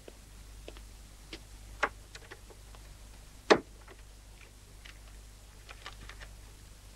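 Faint, irregular paper crackles and clicks as a telegram envelope is handled and opened, with one sharper click about three and a half seconds in.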